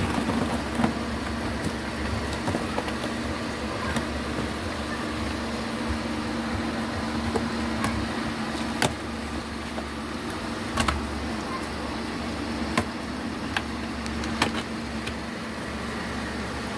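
Scissors slitting packing tape along a cardboard box seam, with a few sharp clicks and taps of the blades and box, over a steady background hum.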